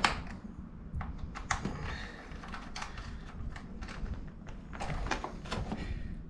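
A run of light clicks and knocks from a hex key working the seat bolts of a Ducati Panigale sportbike, and from the plastic seat being freed and lifted off the frame, with a small cluster of knocks near the end.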